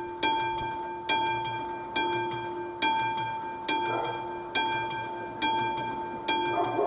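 Classic mechanical level-crossing bell ringing at an even pace, a little more than one stroke a second, each stroke ringing on and fading before the next: the crossing warning is active.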